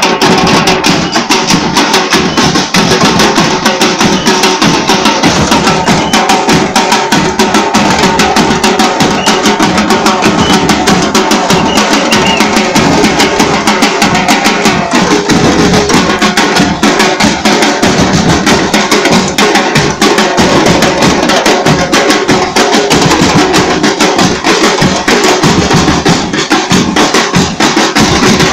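Carnival drum troupe playing a loud, driving rhythm on many drums at once, with rapid, dense strokes and no break.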